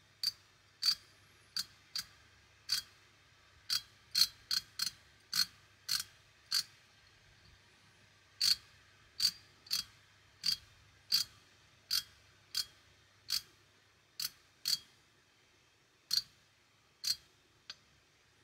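3/8-inch drive ratchet handle clicking one tooth at a time as it is slowly turned in the freewheeling direction, as when its back-drag is measured. About two dozen sharp, separate clicks at uneven spacing, with a short pause partway through.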